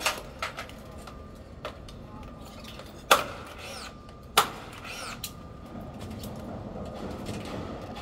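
Sharp metallic knocks at construction formwork, struck at irregular intervals, each with a brief ring. The two loudest come about three seconds in and again about a second later.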